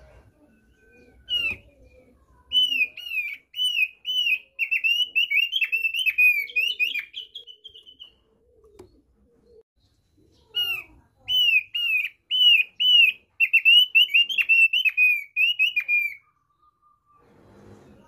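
Thick-billed heleia (opior paruh tebal) singing its basic song: two runs of rapid, high, arching notes, each lasting about five seconds, with a pause of a couple of seconds between them.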